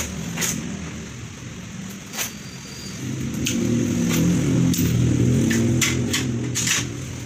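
A motor vehicle engine running out on the street, getting louder about three seconds in, with sharp clicks and taps scattered through.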